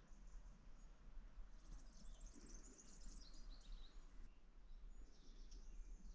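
Faint birds chirping and twittering in short bursts over an otherwise near-silent outdoor background.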